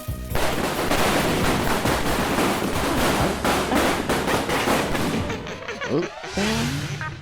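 Cartoon action sound effects: a dense, rapid rattle of bangs like machine-gun fire for about five seconds, then sliding whistle-like tones near the end.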